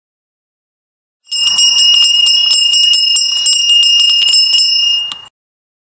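Bells jingling rapidly, a steady high ringing shaken into many quick strikes, starting about a second in and stopping abruptly some four seconds later.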